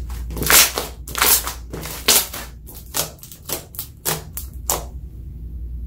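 Glossy black glitter slime being stretched, pressed and poked by fingers, making a quick run of sticky pops and squelches, about a dozen uneven pops, loudest in the first half.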